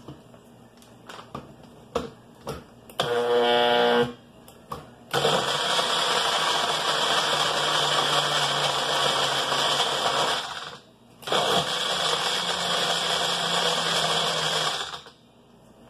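Magic Bullet personal blender crushing ice cubes into a shake: a few light knocks as the cup is handled, a short pulse about three seconds in, then two longer runs of several seconds each with a brief stop between.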